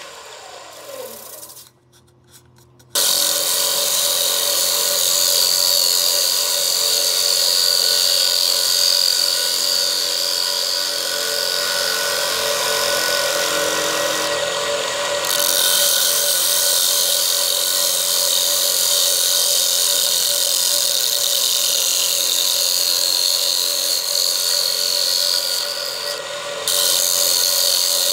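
A bowl gouge cutting into a spinning zelkova plate on a wood lathe, a steady rasping shear as shavings peel off, over the whine of the lathe. It starts about three seconds in, after a quieter stretch, and the cut eases briefly twice.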